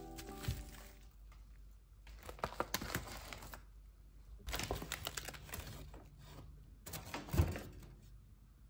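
Plastic grocery packaging crinkling and rustling as items are handled and set down on a countertop, in three bouts, with a soft thump near the end as something is put down.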